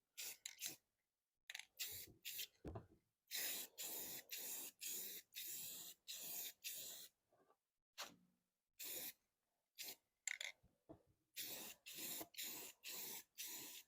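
Spray paint hissing in repeated short bursts with brief pauses between, laying a light coat of black paint.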